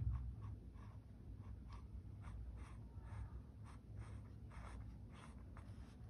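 Mechanical pencil sketching on paper: a run of faint, short scratching strokes, about three a second.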